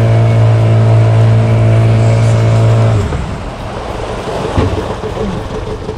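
Boat outboard motor running at a steady pitch, then cutting out about halfway through; after that only a rushing haze of water and wind with a few faint knocks.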